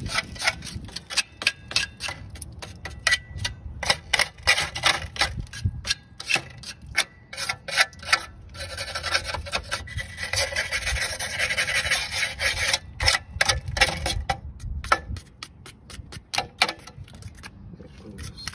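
A brush scrubbing rust and dirt off a rusty wheel hub in rapid back-and-forth strokes. The strokes run together into continuous scrubbing for a few seconds in the middle.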